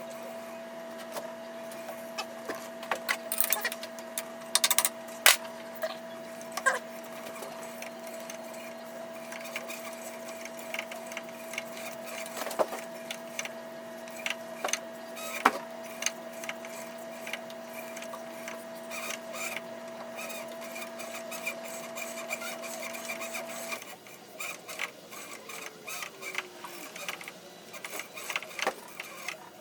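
A machine motor hums steadily while metal parts click and knock during tapping of a drilled hole; the hum cuts off suddenly about 24 seconds in, and the irregular clicks carry on.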